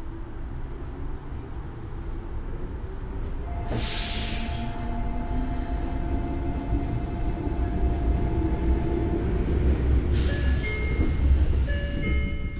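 Tokyo Metro 03 series electric train with armature chopper control, heard from inside the car: a low running rumble that slowly grows louder, with steady whine tones from the chopper control. There is a short burst of hiss about four seconds in, and a longer hissing stretch with high tones from about ten seconds in.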